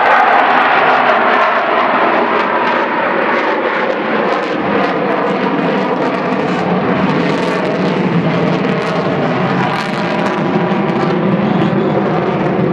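Avro Vulcan B.2 bomber in flight, its four Rolls-Royce Olympus turbojets giving a loud, steady roar with several held tones through it. The roar eases a little through the middle and builds again near the end.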